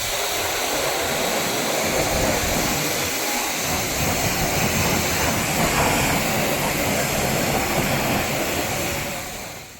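Car-wash equipment being test-run: a steady machine noise with no clear pitch that fades out near the end.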